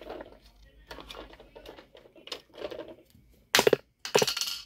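Plastic toy tractor and trailer clicking and knocking as they are moved about on a carpet. Near the end come two loud, short bursts of sound, about half a second apart.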